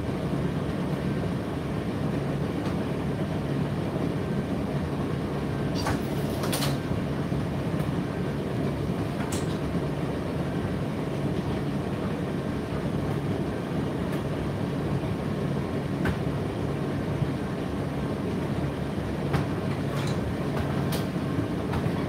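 Indesit IDC8T3 condenser tumble dryer running mid-cycle: a steady low hum from the motor and fan as the drum turns. A few sharp clicks or taps sound at scattered moments.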